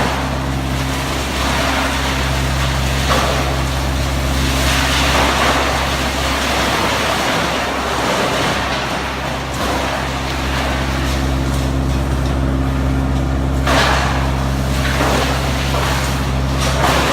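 Wood chipper machine running with a steady engine hum and irregular surges of grinding noise. The hum sags briefly about halfway through, then picks up again.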